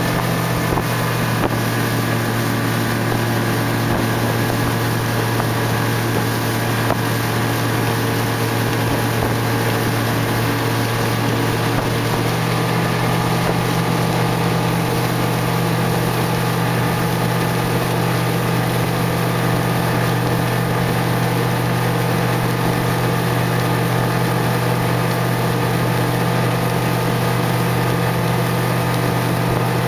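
Motorboat engine running steadily at high speed, a constant drone over the rush of water and wind; a slightly different tone joins about twelve seconds in.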